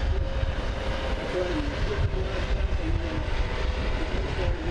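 U.S. Coast Guard HH-65 Dolphin twin-turbine helicopter flying past, a steady, heavy low rumble of rotor and engine noise with faint wavering tones over it.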